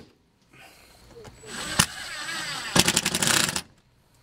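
Milwaukee cordless drill driver driving a screw through the aluminium flange of a mobile home window: a short run about a second and a half in with a single click, then near the end a louder burst of rapid clicking as the screw is run home.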